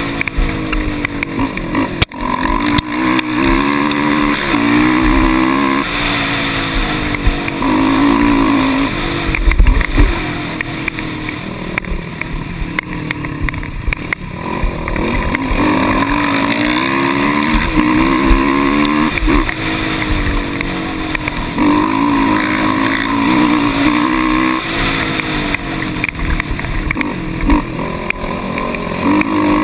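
Quad ATV engine running hard on a dirt trail, repeatedly revving up and easing off as the throttle and gears change, heard close from the machine itself.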